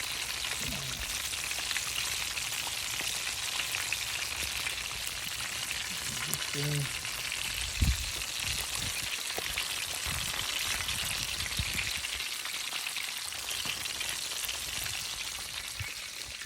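Catfish frying in a skillet: a steady sizzle with fine crackling. A single low thump about eight seconds in.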